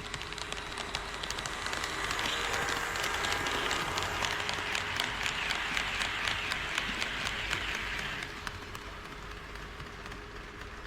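HO scale model train running on KATO Unitrack, its wheels clicking rapidly over the rail joints. It grows louder about two seconds in and falls away after about eight seconds as it passes.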